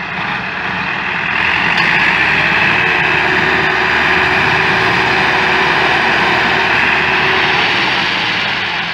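Massey Ferguson tractor diesel engines working hard under heavy load while one tractor tows another, stuck and hitched to a trailer, out of the mud. The engine noise swells about a second and a half in, holds loud, and eases a little near the end.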